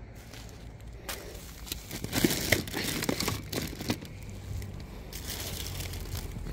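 Plastic garbage sacks crinkling and rustling as they are grabbed and lifted, densest about one to four seconds in, then a softer rustle.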